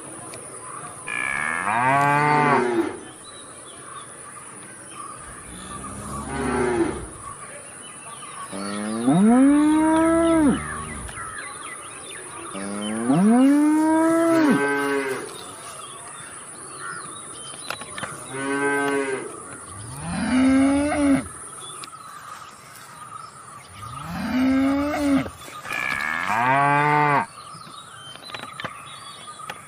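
Cattle mooing repeatedly: about eight long moos with short pauses between them, each rising and then falling in pitch.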